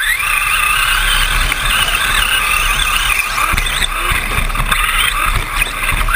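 Electric radio-controlled short course truck racing, its motor and gears whining and wavering up and down in pitch as the throttle is worked, over a steady low rumble.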